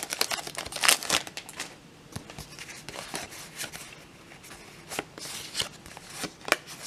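Trading-card booster-pack wrapper crinkling as it is pulled off the cards, then the cards being slid and fanned between the hands, with a few sharp clicks in the second half.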